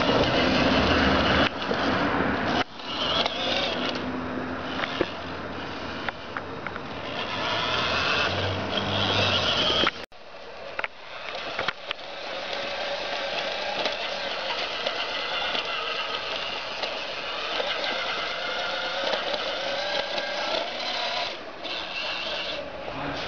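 Battery-powered ride-on toy fire engine driving over paving stones: its electric motor running and plastic wheels rattling over the joints. The sound cuts out for a moment about ten seconds in.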